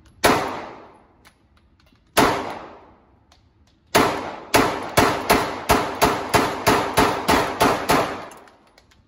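A 9mm Glock 19 pistol fired in an indoor range, each shot ringing off the concrete lane. There are two single shots about two seconds apart, then a rapid string of about a dozen shots at roughly three a second.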